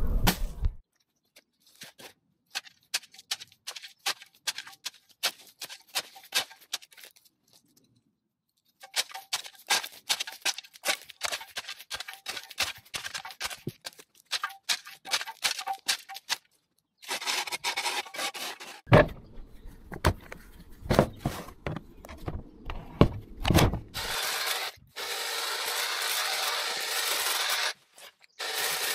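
A long-handled hand tool scrapes and rakes soil and leaf litter along a concrete kerb, with irregular scratchy strokes and a few heavier knocks. For the last few seconds a Kress cordless hedge trimmer runs steadily, cutting through twiggy overgrown hedge.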